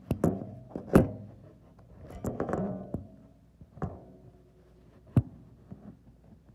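Scattered knocks and clanks of hand tools and metal being handled, some with a brief metallic ring. The sharpest knocks come about a second in and again about five seconds in.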